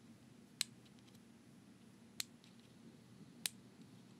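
Three small, sharp clicks, spaced more than a second apart, from fingers handling a Uwell Crown D pod vape, over a faint low room hum.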